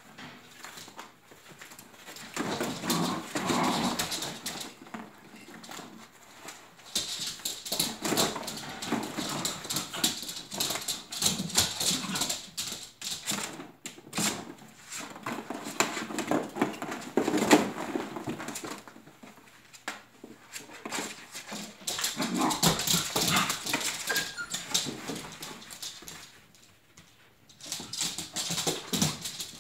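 Icelandic Sheepdog puppies whimpering and yipping as they play, with the irregular clatter of plastic ball-pit balls in a plastic wading pool and rustling of puppy pads, coming and going in busy stretches.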